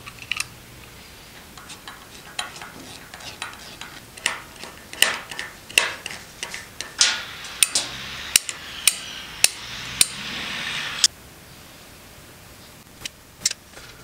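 Irregular clicks and clinks of small metal parts being handled as a replacement float switch is fitted and screwed into a cast-iron sump pump's switch housing. A steady hiss joins in partway through and cuts off abruptly about eleven seconds in.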